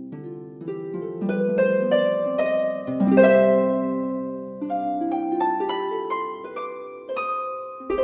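Background music: a gentle, flowing run of plucked harp-like notes, each ringing and fading as the next one sounds.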